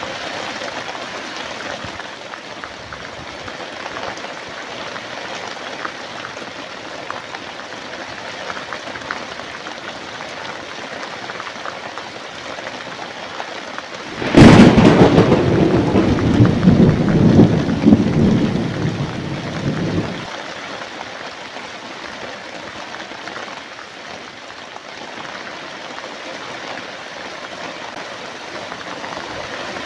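Steady heavy rain falling, with a sharp crack of thunder about halfway through that rolls on as a rumble for several seconds before dying away, leaving the rain.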